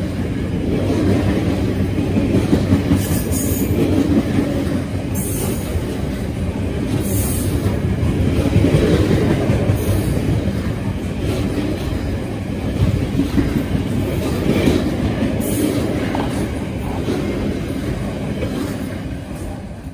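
Freight train wagons rolling past at close range: a steady rumble and clatter of wheels on rail, broken by several brief high-pitched squeals from the wheels.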